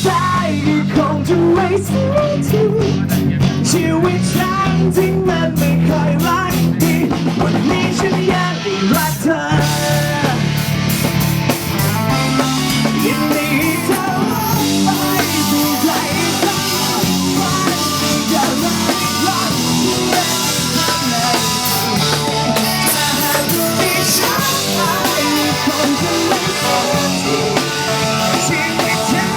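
Pop-rock band playing with drum kit, electric guitar and bass: a stretch of the song where no lyrics are sung.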